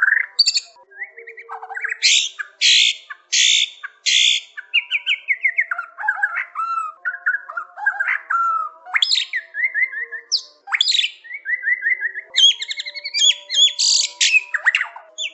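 White-rumped shama (murai batu) singing a long, varied song. It mixes rising whistles, four harsh rasping notes about two seconds in, and rapid trills and chains of repeated falling notes.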